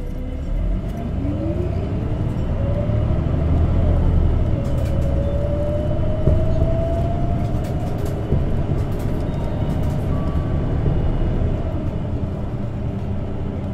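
Isuzu Erga CNG city bus heard from inside the passenger cabin as it pulls away and accelerates. A whine climbs in pitch over the first several seconds as the running noise grows louder, then the bus runs steadily.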